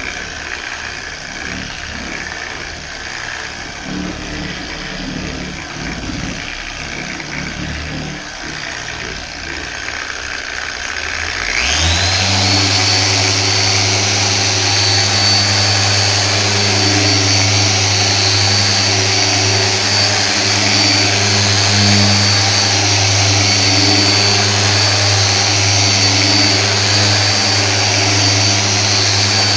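Electric car polisher starting up about a third of the way in: its motor whine rises quickly, then holds as a steady high whine over a low hum while the pad runs on the paint. Before it starts there is a lower, uneven noise.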